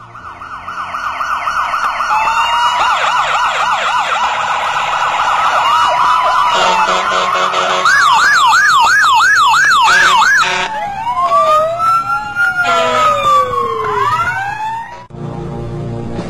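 Several police sirens sounding together, fading in at the start: a fast warbling yelp at about three cycles a second some eight seconds in, then slower rising and falling wails, all stopping suddenly about fifteen seconds in.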